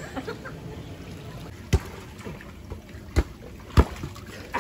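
Water splashing and sloshing in a swimming pool, with three sharp knocks about a second and a half, then half a second, apart.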